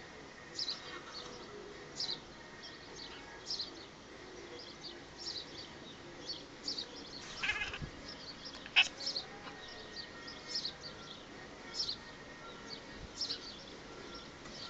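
Small birds chirping over and over in short high notes, with a cat giving a couple of louder short calls near the middle, one falling in pitch: the excited noises of a cat watching birds.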